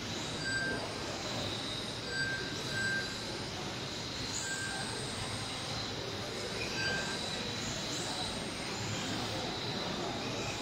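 Electric radio-controlled Tamiya F1 cars lapping a carpet track, their motors giving a high steady whine over tyre and drivetrain noise, echoing in a large hall. Five short identical beeps come at irregular intervals, the sound of a lap-timing system as cars cross the line.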